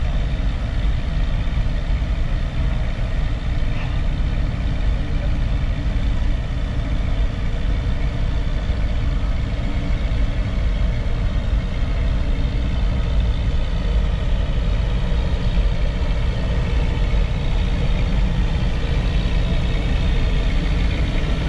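Shay geared steam locomotive standing with steam up, giving off a steady low rumble and hiss.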